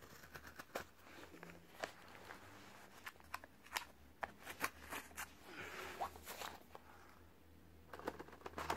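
Faint handling of a Samsung S23 Ultra's cardboard retail box and its paper inserts during unboxing: scattered small clicks and crackles with soft rustling of paper.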